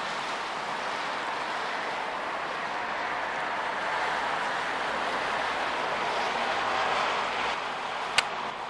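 Small Renault hatchback driving slowly over wet, slushy pavement: a steady tyre hiss that swells briefly as the car passes close by. A single sharp click comes near the end.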